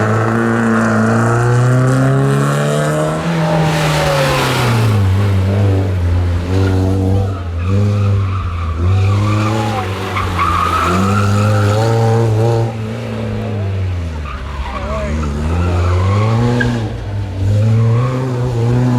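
Classic rally car engine revving hard, its pitch climbing and dropping again and again through gear changes and lifts off the throttle, with tyres squealing briefly about halfway through.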